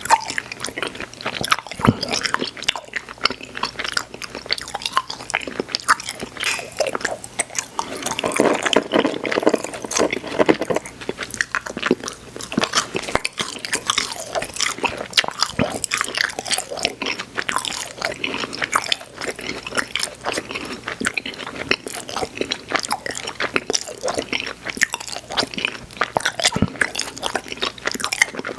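Close-miked chewing of soft, sticky, sour chewy candy: wet smacking and clicking mouth sounds that keep coming without a break.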